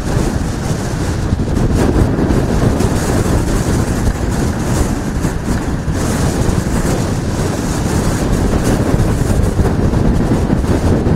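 Strong hurricane wind blowing across the microphone in a steady, rumbling rush, over the wash of storm-surge floodwater moving through the street.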